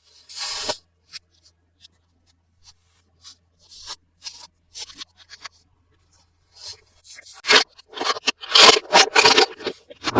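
Toy packaging being handled: short, scattered scrapes and rustles, growing denser and louder over the last few seconds.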